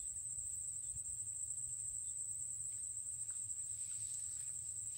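Insects trilling in a steady, high-pitched chorus, with a low rumble underneath.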